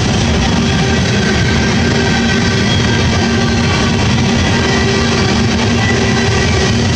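Freight train of tank cars rolling past at close range: a steady, loud rumble and clatter of steel wheels on rail, with faint steady ringing tones over it.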